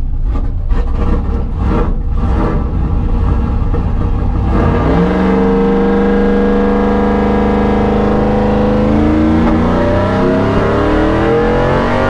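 Stock naturally aspirated race-truck engine heard from inside the cab. It runs unevenly at low revs, then about five seconds in goes to full throttle for a drag-strip launch, holding a strong note that climbs slowly. The note shifts about nine seconds in and climbs again.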